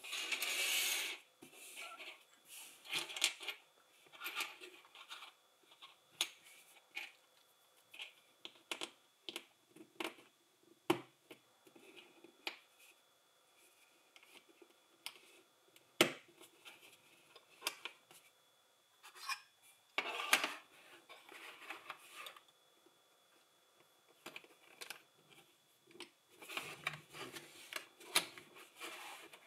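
LEGO plastic bricks being handled and pressed together: scattered sharp clicks of pieces snapping into place, with several short bursts of plastic rattling and rubbing as loose pieces are moved about. The first burst comes right at the start, and a single sharp click about 16 seconds in is the crispest.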